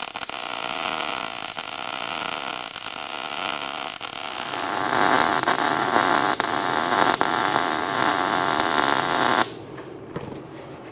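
MIG welding arc crackling steadily as steel plates are welded onto a truck frame, a little louder from about halfway; the arc stops near the end.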